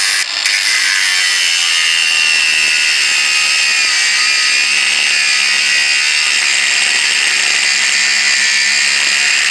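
Ryobi power tool cutting through a stove screw, a steady loud cutting noise with a high whine that sinks a little under load. The screws are being cut off because their flat-screwdriver slots won't turn.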